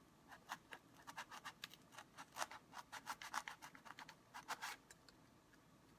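A small hand blade sawing up and down through a block of layered foam: a quick, uneven run of short, faint scratching strokes that stops near the end.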